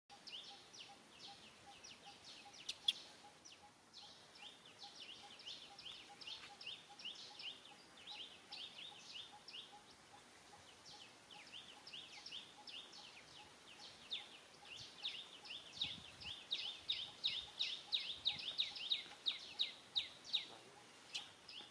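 Small birds chirping in quick runs of short, high, down-slurred calls, growing louder and more regular at about three a second in the last several seconds, over a faint steady pulsing note.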